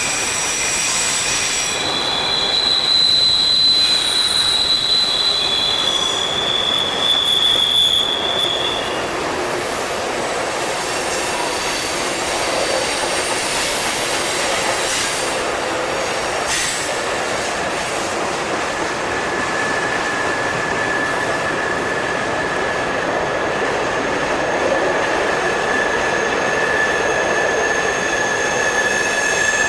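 Mixed freight train rolling past on steel rails, a steady rumble of wheels with long high-pitched flange squeals. One squeal rings from about two to nine seconds in, and a lower one starts partway through and holds to the end.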